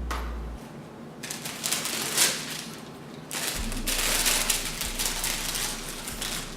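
Sneaker-box packaging being handled, rustling and crinkling in several bursts as the shoes are unpacked from the box.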